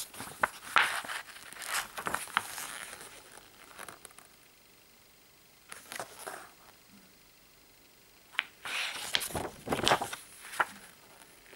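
Paper rustling and crinkling as a fold-out lyrics sheet is unfolded by hand, in several bursts with quiet pauses between.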